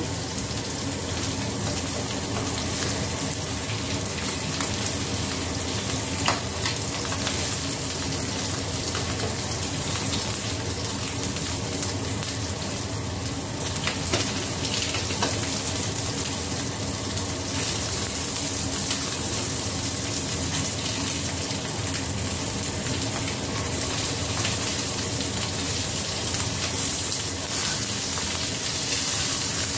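Whole fish frying in hot oil in a frying pan, along with galangal and lime leaves, sizzling steadily. A few sharp clicks come from a metal spatula touching the pan as the fish are moved.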